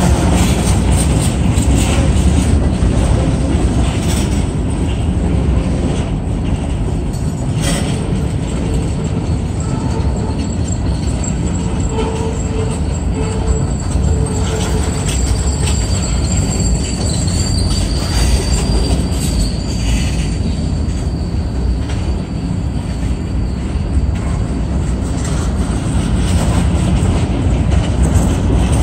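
Freight cars, open-top hoppers and gondolas, rolling steadily past: a loud, continuous rumble of steel wheels on the rails with scattered knocks and clanks. Faint thin squeals from the wheels come a few times midway through.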